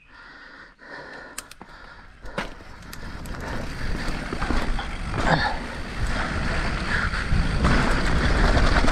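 Mountain bike riding down a dirt downhill trail: tyres rolling and the bike rattling over the ground. The noise grows steadily louder from about two and a half seconds in as the bike picks up speed.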